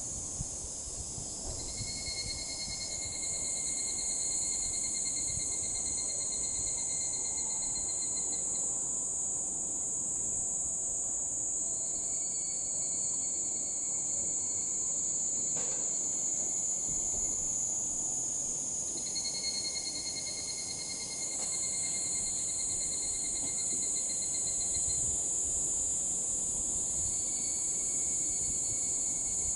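Higurashi (evening cicadas) calling in a series of rapid, pulsed trilling phrases, each several seconds long: one about a second and a half in, another about twelve seconds in, another about nineteen seconds in, and a last one near the end. A steady high-pitched insect drone runs beneath them.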